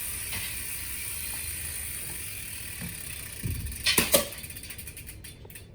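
Mechanical clicks and knocks from a mountain bike being worked on: two sharp metallic knocks about four seconds in, followed by a quick run of light ticks.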